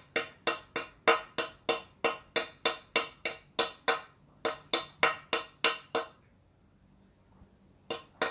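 Pincers biting chips off the edge of a hole in a glazed ceramic tile, widening the hole: a quick run of sharp cracks, about four a second, which stops for about two seconds near the end and starts again just before the end.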